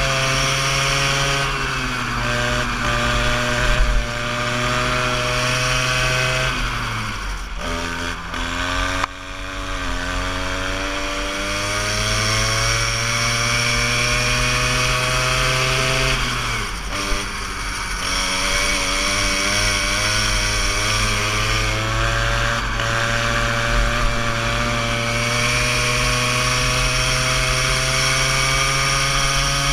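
Go-kart engine heard from the driver's seat, running hard with its pitch climbing steadily as the kart gathers speed. The pitch falls away sharply twice, about seven seconds in and again about seventeen seconds in, as the throttle comes off, and each time it climbs again.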